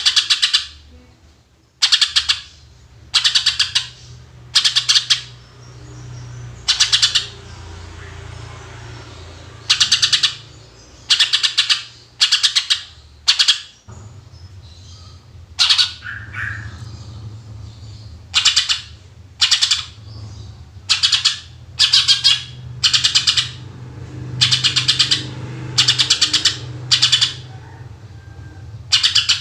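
Cucak ijo (green leafbird) singing in loud, short bursts of rapid, sharp high notes, the 'tembakan' shooting phrases, one burst every second or two with a few longer pauses, over a steady low hum.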